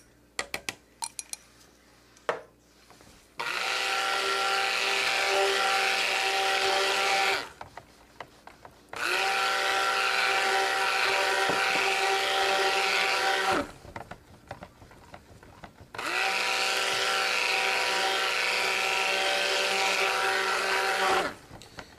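Handheld stick blender running in a bowl of cold process soap batter in three steady bursts of about four seconds each, with short pauses between. A few light clinks of a utensil on the bowl come before the first burst.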